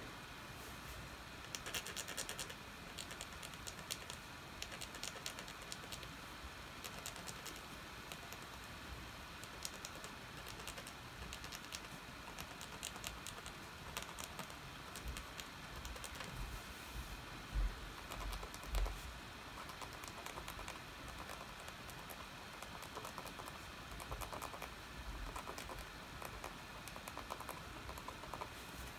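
A toothpick point scratching short strokes through the black top layer of a wax-crayon scratch-art sheet, giving a run of light, quick scratches and ticks. Two soft low thumps come about two thirds of the way through.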